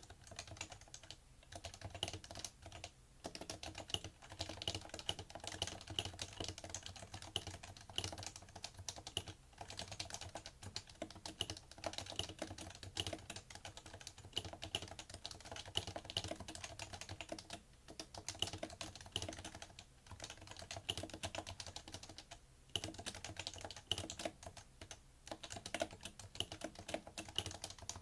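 Steady, fast typing on a PFU Happy Hacking Keyboard Professional2, its Topre electrostatic capacitive key switches giving a continuous stream of muted keystroke clacks, with a few short breaks between bursts.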